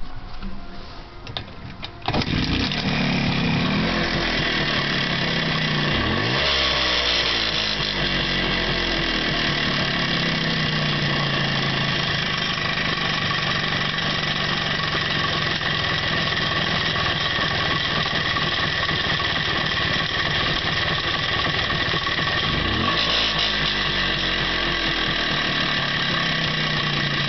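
MZ motorcycle engine starting about two seconds in after some light clattering, then running steadily at idle, with its speed briefly changing twice. The owner finds something in its running noise strange.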